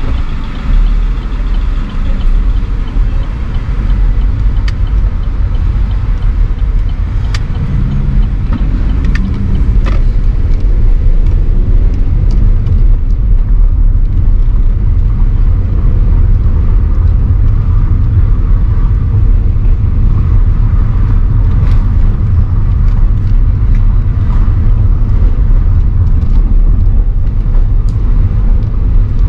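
Steady low rumble of motor-vehicle traffic on a city street, with a few scattered sharp clicks.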